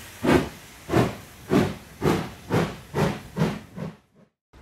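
Steam locomotive exhaust chuffing, about eight beats that come steadily quicker as it pulls away, then stopping abruptly near the end.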